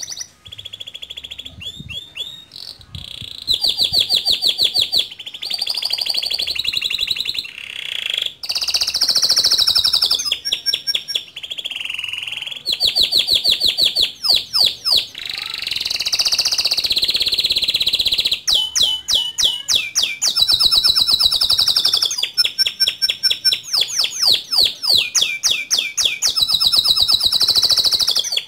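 Male domestic canary singing a long, unbroken song of rolling trills: runs of one note repeated rapidly, switching from one run to the next, some fast and buzzy and some slower with sliding notes.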